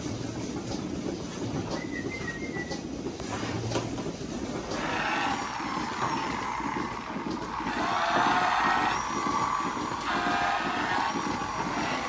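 Milking parlour machinery running with a steady rumble. About five seconds in, it gives way to a louder, wavering whirr.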